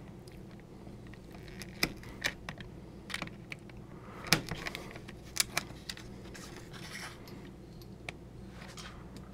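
Hobby knife cutting through the thin plastic webbing between model-railway flex-track ties: a scatter of small sharp clicks and snaps, the loudest about four seconds in, over a faint steady hum.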